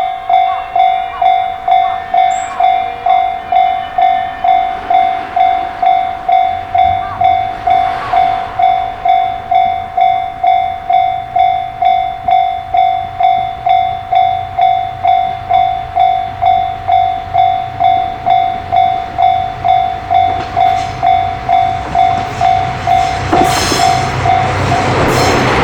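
Japanese level-crossing warning bell ringing its "kan-kan" tone about twice a second. A train's low hum comes in behind it, and near the end the train reaches the crossing with a rising rush of wheels on rail as the bell stops.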